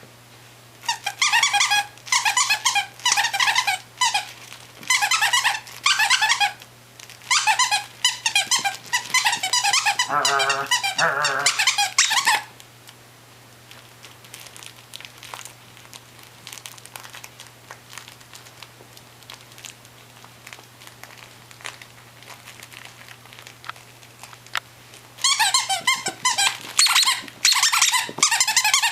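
Squeaky dog toy squeaking in rapid runs of short, warbling squeaks as a mini dachshund puppy chews on it, then going quiet for a long stretch with only faint small clicks, and starting up again near the end.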